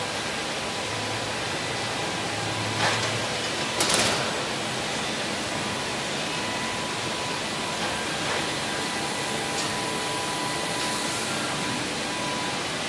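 Steady machine hum of a door-blank press line and its roller conveyors running, with two short clanks about three and four seconds in.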